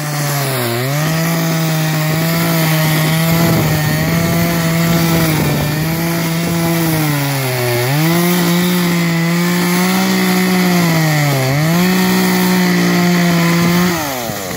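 Chainsaw running at high speed while cutting into thick lake ice. Its pitch sags and recovers about four times as the bar bogs down in the cut, and it drops away shortly before the end.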